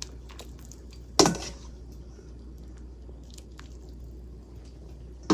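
Metal kitchen tongs handling chunks of beef into a stainless steel stockpot of hot water: soft wet squelches and light clicks, with one louder knock about a second in.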